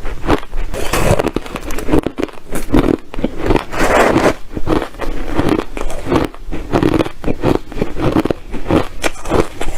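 Ice chips being bitten and chewed close to the microphone: a loud, rapid run of crunches, several a second.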